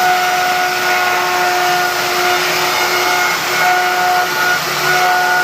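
An electric power tool running steadily with a motor whine over a loud rushing noise. The whine drops out and comes back a few times.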